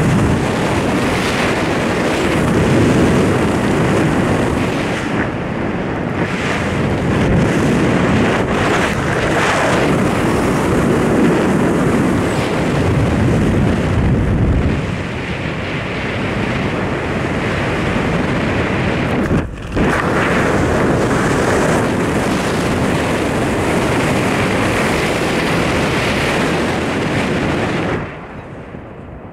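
Wind rushing over the camera microphone during a parachute descent under canopy, a loud, steady noise. It drops off sharply about a second before the end as the jumper reaches the ground.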